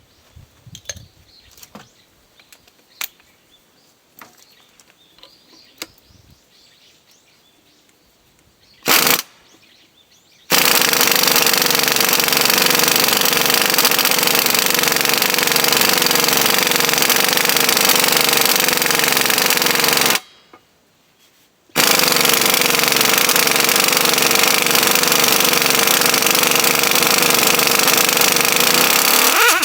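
Light clinks and knocks of metal being handled, then a power tool with a rapid hammering action runs in two long bursts of about ten and eight seconds, with a short pause between them.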